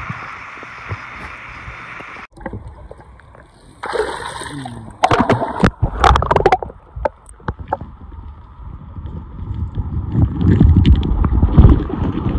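Steady rush of river water, then after a sudden cut, splashing and scattered sharp knocks, with a low rumble building near the end.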